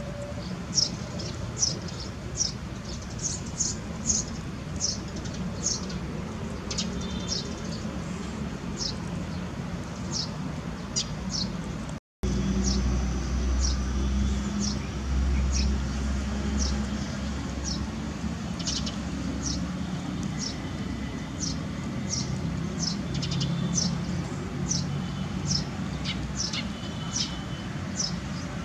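Short, high-pitched animal chirps repeating about twice a second, over a low background rumble that swells for a few seconds around the middle.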